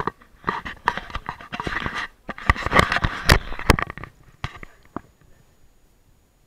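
Handling noise on a small action camera: rubbing and rustling against the microphone with several sharp knocks, loudest about three seconds in, then quieter with a few faint clicks.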